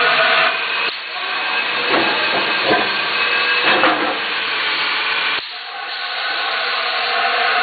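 5-gallon water bottle filling machine: its steady pitched hum breaks off within the first second and gives way to a hiss of spray for about four and a half seconds. The hum cuts back in suddenly about five and a half seconds in.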